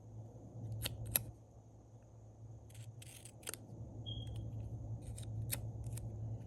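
Small scissors snipping paper, cutting a sticker to size: several separate snips with pauses between them.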